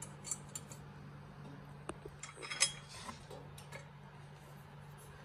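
Small metal clicks and clinks of a bolt, washer and nylock nut being handled and fitted by hand into a steel crash-bar clamp, scattered through, with a short cluster of clinks a little after halfway.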